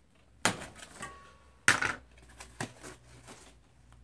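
A few sharp snaps and crackles of packing being cut and pulled apart: plastic zip ties snipped and foam wrapping on a bicycle wheel handled, with the loudest snap about halfway through.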